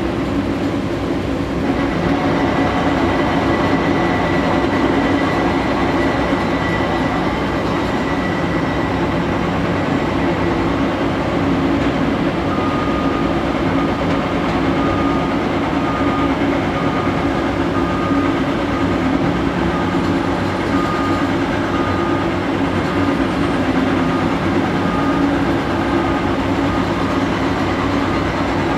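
Caterpillar 330D L hydraulic excavator's C9 diesel engine running steadily under working load while it digs and swings. From about midway a high tone pulses about once a second over the engine noise.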